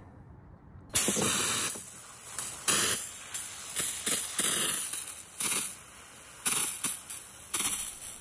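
Water jetting from a garden hose spray nozzle onto grass: a hiss that starts about a second in and comes and goes in uneven surges.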